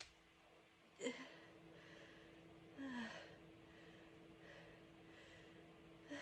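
Quiet gasping breaths and sighs between powerful sneezes: a sharp intake about a second in, a longer breath with a low falling voiced note around three seconds in, and another breath near the end, over a faint steady hum.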